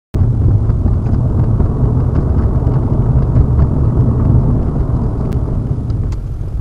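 Steady low rumble of a car's engine and road noise while driving, picked up by a dashcam. It cuts in abruptly just after the start and cuts off just before the end.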